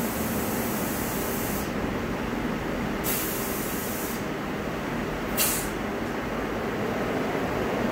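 Compressed air hissing in bursts at a tyre changer: a long hiss that stops early on, another about three seconds in, and a short sharp one a little after five seconds, over a steady background of shop machinery noise.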